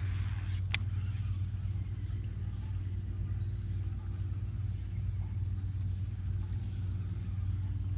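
Steady low rumble under a constant high-pitched drone of insects, with a single sharp click just under a second in.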